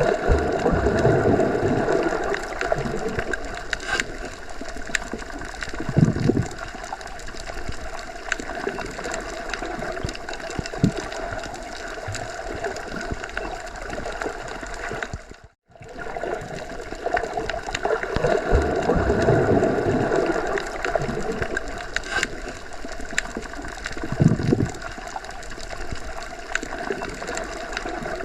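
Underwater ambience: water noise that swells in the low end every few seconds, with scattered faint clicks. It cuts out for a moment about halfway through, then starts again as the same stretch repeats.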